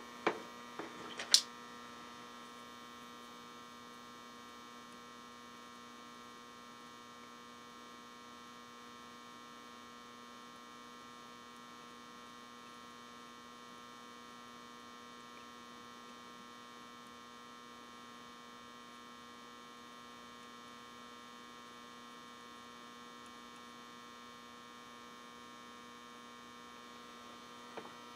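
Steady electrical hum made of several fixed tones, with one sharp click about a second and a half in.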